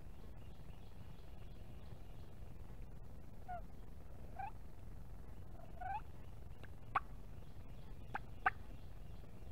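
Turkey calling: three short, soft rising notes about a second apart, then three sharp, short notes near the end, over a low steady background rumble.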